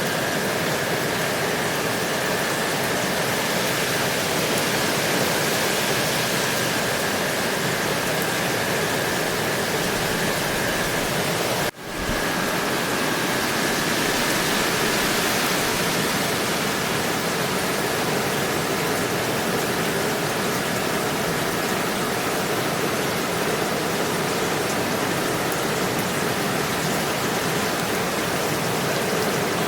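Steady rain, an even hiss with a faint high steady tone running through it. The sound cuts out for a split second about twelve seconds in, then carries on unchanged.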